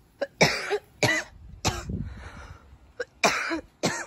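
A series of short, sharp vocal bursts, five or six in about four seconds, each loud and sudden.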